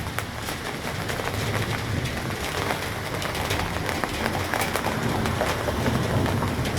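Steady rain falling during a thunderstorm, with many individual drops ticking sharply on a nearby surface over a continuous low rumble.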